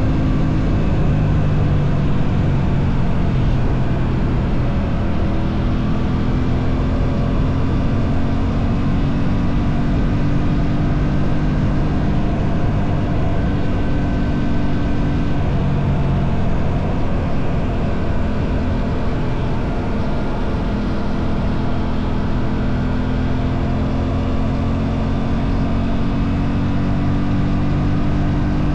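Aprilia RS 457's parallel-twin engine running steadily under way, its pitch slowly climbing, dropping back, then climbing again with the throttle.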